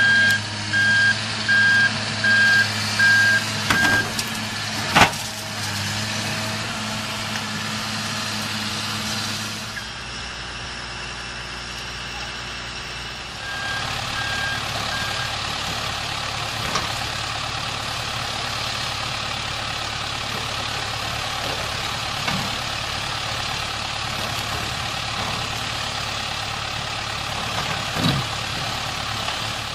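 A CAT excavator's diesel engine runs steadily while its backup alarm beeps at an even pace for the first few seconds. About five seconds in, a single sharp bang sounds as the bucket strikes the concrete silo wall. Later comes steady machine noise with occasional knocks, and the alarm beeps briefly once more.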